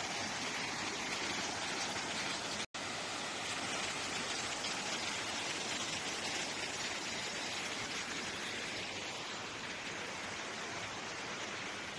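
Steady rushing of flowing water, a dense even hiss like a swollen stream, with a momentary cut-out about three seconds in.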